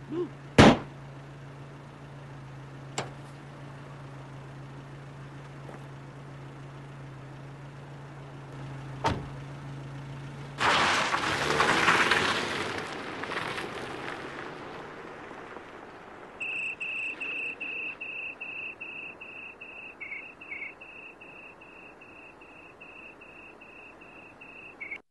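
A sharp, loud crack about half a second in, over a steady low hum that stops about ten seconds in as a rush of noise swells and fades. Then a cricket chirps in even, repeated pulses.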